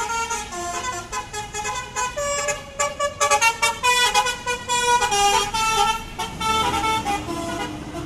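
Basuri horn on an Agra Mas coach, a multi-tone air horn playing a fast stepping melody of several notes at once. It is loudest in the middle as the bus passes close by.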